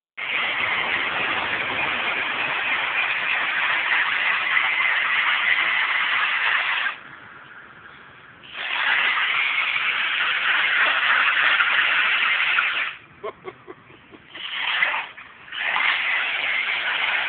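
Traxxas 1/16 Slash VXL brushless RC truck driving on wet asphalt, its electric motor and tyres making a loud, steady whir without a clear pitch. It drops away briefly about seven seconds in, again around thirteen seconds with a few short bursts, then runs again near the end.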